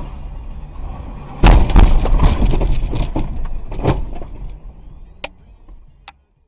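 Car crashing into a cement mixer truck that slides across a snowy road: steady road noise, then a sudden loud crash about a second and a half in, with a run of further crunching impacts over the next two and a half seconds that fade away, and two sharp clicks near the end.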